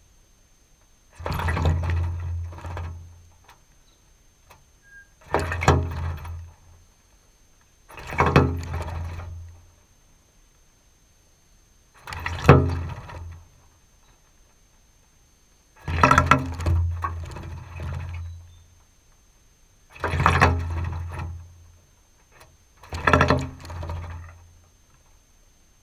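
A North Island robin bathing in a shallow metal water trough close to the camera: seven bouts of wing-fluttering splashing, each a second or two long, about every three to four seconds, with quiet between them.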